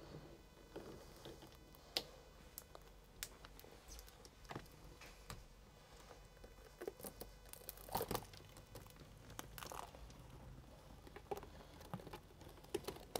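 Faint scattered clicking and crackling of a Land Cruiser Troopcarrier side window being levered out of its frame, its tacky mastic seal pulling away from the sill, with a few sharper clicks.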